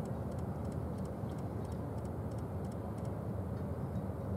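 Steady low rumble of a large cruise ship under way across the harbour, with a run of faint, quick high-pitched ticks over the first three seconds.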